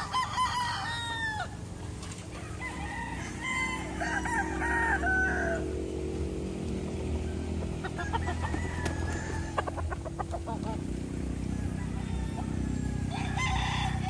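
Gamefowl roosters crowing: one crow at the start, a longer one a few seconds in that falls away at its end, and another near the end, over a steady low hum.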